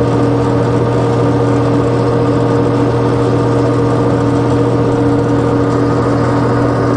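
Colchester 15x48 metal lathe running at a steady speed, an even motor and gearbox hum with several held tones.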